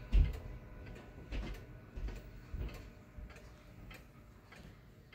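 F.M.S. Mauthe chime box wall clock's pendulum movement ticking, its movement freshly cleaned and oiled. There are about three ticks every two seconds, with one louder knock near the start, and the ticks grow fainter toward the end.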